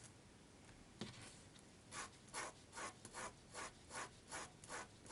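Rhythmic back-and-forth rubbing strokes on paper, about two and a half a second, starting about two seconds in, after a single light knock about a second in.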